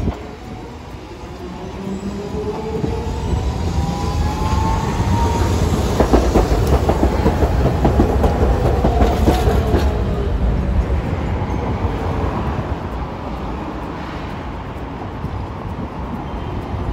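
A Hiroshima Electric Railway street tram passes close by. Its motor whine rises and then falls, and its wheels click over the rail joints at its loudest point, about halfway through. The sound then fades as it moves away.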